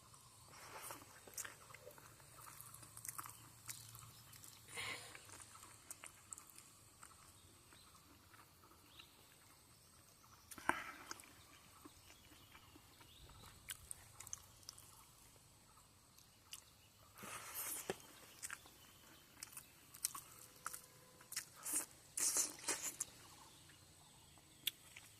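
A person chewing and biting food, with intermittent crunches and small clicks between quieter stretches.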